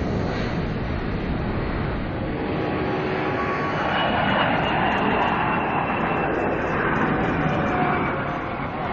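Jet airliner at takeoff power, its GE90-115B turbofan engines giving a steady, loud rushing roar, with faint whining tones that fall slowly in pitch.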